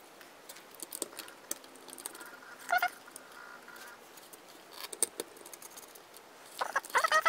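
Small clicks and taps of a screwdriver tip and fingers on the plastic housing and circuit board of a robot vacuum's opened laser distance sensor, with a louder short rattle about three seconds in and another near the end.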